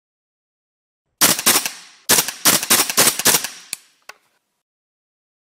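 Gunshot sound effects: two shots a little over a second in, then a quick string of about six more, each with a short ringing tail, ending with two faint clicks.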